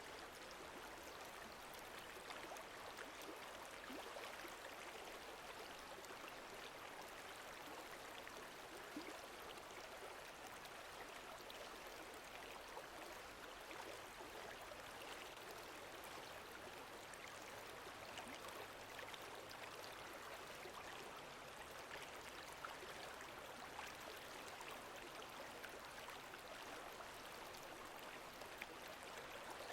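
Faint, steady sound of gently moving lake water, with small scattered splashes and drips through it.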